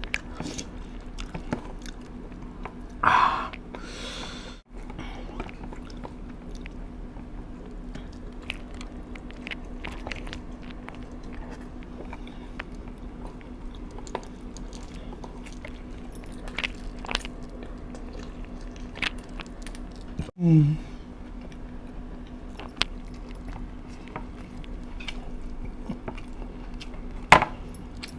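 A person chewing and biting food close to the microphone, with many small crunching clicks over a steady low hum. Two louder brief sounds stand out, about three seconds in and again about twenty seconds in, and a sharp click comes near the end.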